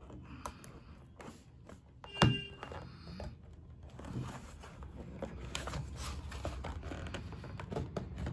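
A product box being unsealed and opened by hand: scattered rustling, small clicks and handling noises, with one sharp knock about two seconds in.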